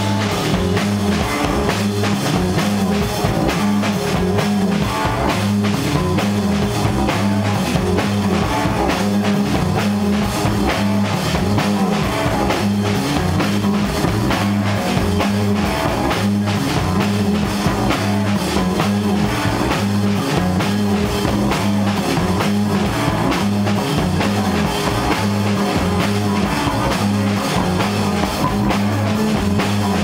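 Live stoner rock band playing at full volume: distorted electric guitars and bass on a repeating low riff over a steady drum-kit beat.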